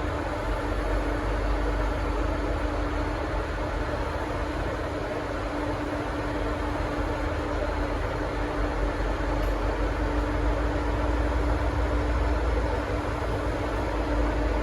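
V/Line N class diesel locomotive idling: a steady engine rumble with a constant hum, slightly louder over the last few seconds.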